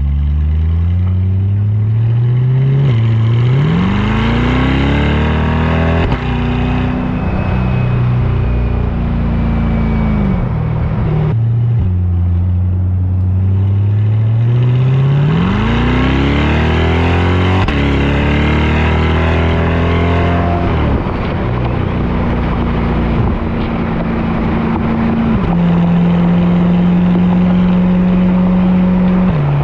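Chevrolet Corvette C8 Stingray's 6.2-litre V8 pulling hard, its pitch climbing and then dropping sharply at each quick upshift several times over, with an easing-off in between. It settles to a steadier drone for the last several seconds, stepping in pitch a couple of times. It is heard from outside the car at the rear body near the engine, with road and wind noise.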